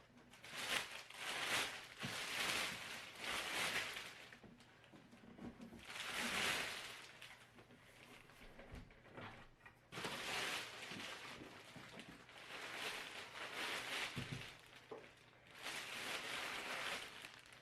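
Packaging rustling and scraping in several long swells, with a few light knocks, as a boxed curing oven is unwrapped and lifted out.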